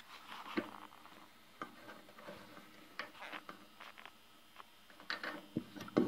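Faint, irregular clicks and scrapes as a coffee maker's spray head is screwed onto its fitting by hand.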